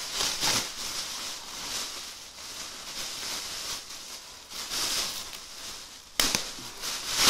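Rustling and crackling of packaging as hands work at a tied string, then a sharp snap about six seconds in as the string breaks.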